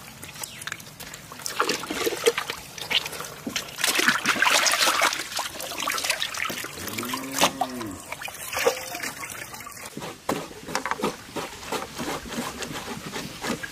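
Water splashing, sloshing and trickling in a large metal basin as goat intestines are rinsed by hand, lifted out dripping and squeezed. The splashes come irregularly and are loudest about four seconds in.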